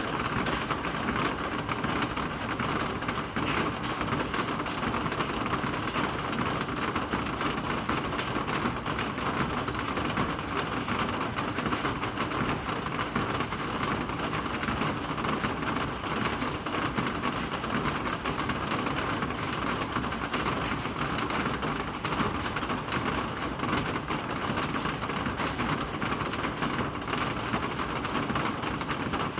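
Steady rain falling: a dense, even patter of many small drops that does not let up.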